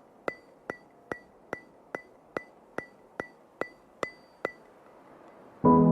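The opening of a soft ambient music track: evenly spaced, clock-like ringing ticks, a little over two a second, which stop about four and a half seconds in. A sustained piano chord comes in near the end.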